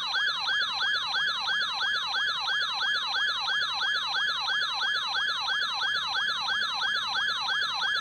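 Emergency Alert System attention tone: a loud, siren-like electronic tone sweeping rapidly up and down about three and a half times a second, held steady throughout.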